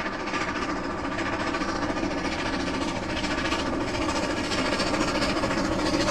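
Steam locomotive running on the line: a steady, continuous rhythmic working sound.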